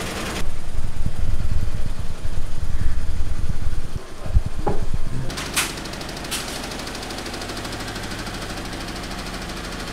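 Low mechanical rumble with a rapid throbbing, loud for the first few seconds, then settling into a steadier hum, with a few sharp knocks in the middle.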